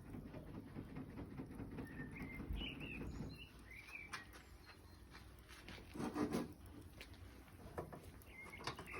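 Faint outdoor birdsong: short high chirps a couple of seconds in and again near the end, over a low background rumble. Scattered small clicks and one brief, louder noise about six seconds in.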